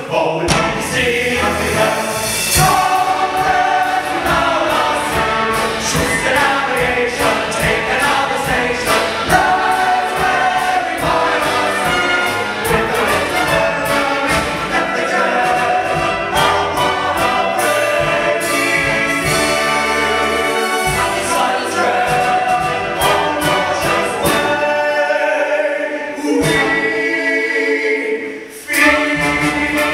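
Operetta chorus singing with a live pit orchestra. The music drops away briefly near the end, then comes back in.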